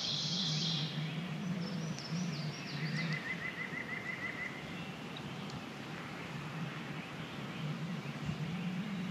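Songbirds singing: a bright, rapidly repeated song fades out in the first second, a few high chirps follow, then a rapid trill of about a dozen notes about three seconds in. A low, wavering hum runs underneath.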